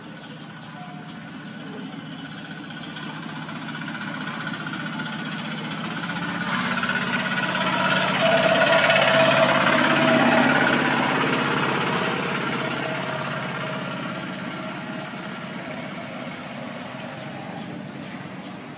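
A passing vehicle's engine, growing slowly louder to a peak about halfway through and then fading away.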